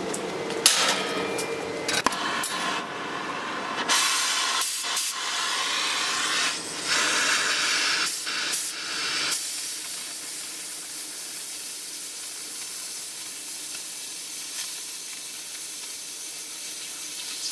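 Oxy-fuel cutting torch hissing as it cuts through thick welded steel plate. A sharp knock comes about a second in. The hiss is louder and uneven with brief breaks through the middle, then settles into a steadier, quieter hiss.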